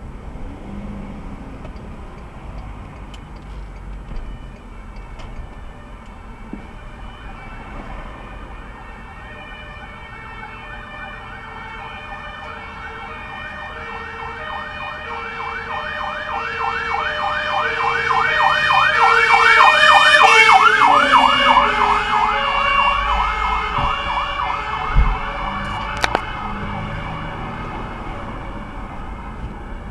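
Fire engine siren approaching and passing: a fast, repeated rising-and-falling yelp over a lower two-note tone. It swells from faint to loudest about two-thirds of the way through, then fades away.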